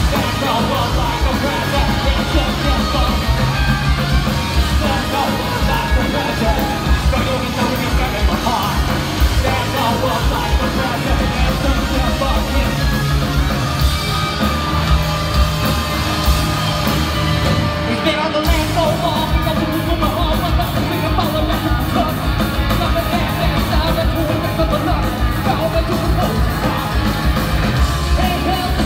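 Post-hardcore band playing live: loud electric guitars, bass and drums with yelled singing, heard from within the audience in a large hall.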